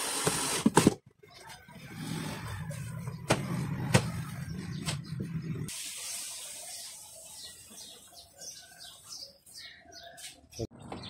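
Cordless drill-driver running briefly as it drives a cabinet hinge screw, stopping about a second in. It is followed by a low rumble with a few sharp knocks, then short bird chirps near the end.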